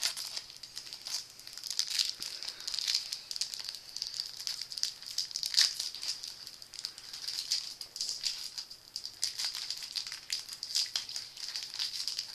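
Plastic wrapping of a Pokémon trading card booster pack crinkling and crackling as hands work it open, with one louder crackle about halfway through.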